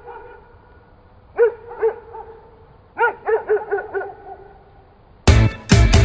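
A dog barking in short, sharp barks: two about a second and a half in, then a quick run of five or six a second and a half later. Loud music with a hard, chopped beat cuts in near the end.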